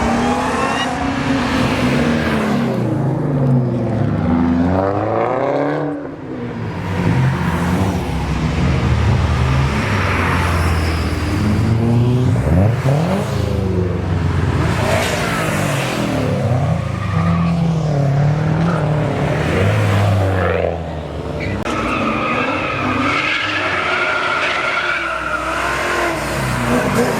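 Cars accelerating hard away, their engines and exhausts revving up and down in repeated rising pulls. Near the end a high, wavering tyre squeal runs over the engine noise for a few seconds.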